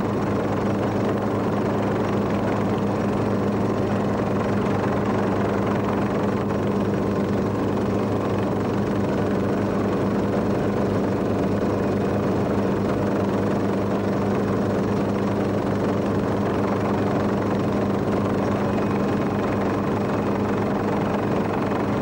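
Steady drone of a helicopter's engine and rotor, heard from aboard. Low tones hold one unchanging pitch throughout.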